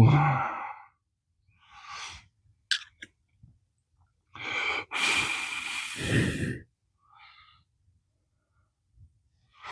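A person's long, breathy exhale like a sigh, about halfway through, with a few faint clicks before it.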